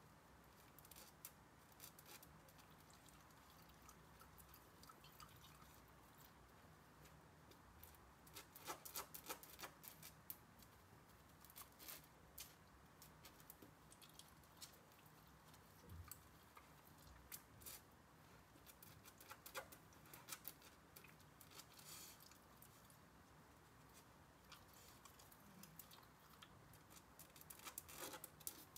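Golden retriever puppy licking and gnawing an ice cube on the floor: faint, scattered clicks and crunches that come in small clusters, over quiet room tone.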